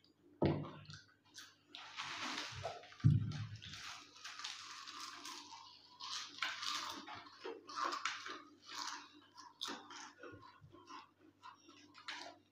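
Potato chips being crunched and chewed, with many short crackles throughout. There are two dull thumps, about half a second and three seconds in, and the second is the loudest sound here.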